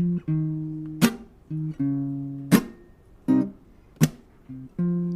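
Acoustic guitar playing a slow instrumental passage: chords struck and left to ring down, with a sharp percussive hit about every second and a half.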